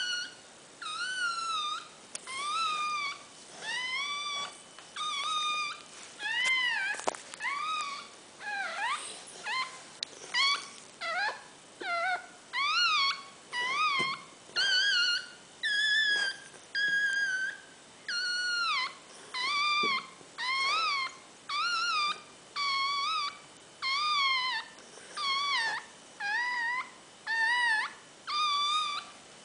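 Dog crying during whelping: a long run of short, high-pitched whining cries, roughly one a second, each rising then falling in pitch.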